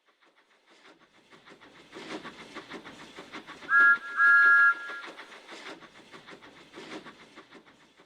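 Steam locomotive running past, its wheels clattering rhythmically over the rail joints, building up and then fading away. Midway it sounds its whistle twice, a short blast then a longer one, each sliding up briefly before holding two notes.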